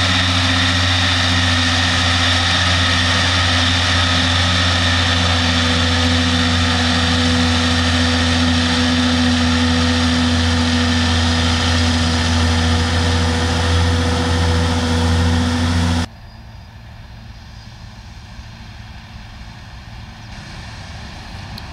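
Camera drone's rotors giving a loud, steady hum with several fixed tones. About sixteen seconds in it cuts off abruptly, and a quieter Fendt tractor engine running under load follows as it pulls a loaded silage trailer.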